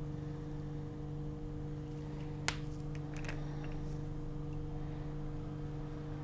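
Steady low electrical hum, with one sharp click of plastic labware being handled (microcentrifuge tube and micropipette) about two and a half seconds in and a few faint clicks just after.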